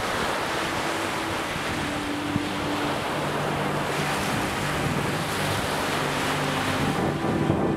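Ocean surf washing steadily, with faint low held tones underneath.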